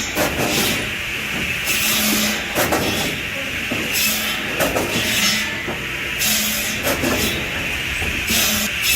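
Heavy wood-cutting machinery working through timber: a dense grinding hiss that swells and drops every second or two, with sharp cracks and knocks of wood breaking scattered through it.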